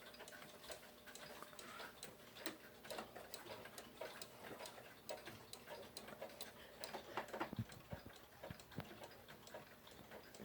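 Seth Thomas Adamantine black mantel clock ticking faintly and steadily, its pendulum-regulated recoil escapement beating. A few low thumps come about two-thirds of the way through.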